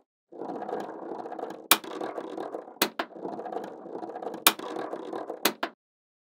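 Small magnetic balls rattling and rolling against each other in a continuous fine clatter, with several sharp clicks as balls snap together.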